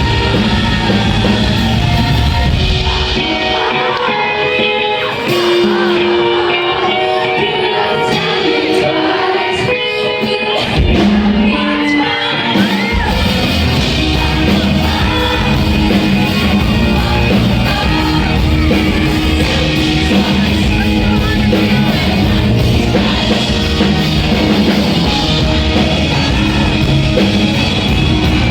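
Live rock band playing with a singer. About three seconds in the bass and drums drop out, leaving sustained guitar and vocal lines. The full band comes back in about ten seconds later.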